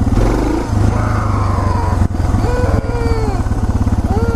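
Motorcycle engine running as the bike rides along, with an even low pulsing beat that smooths out for a second or two near the start before settling back into its steady beat.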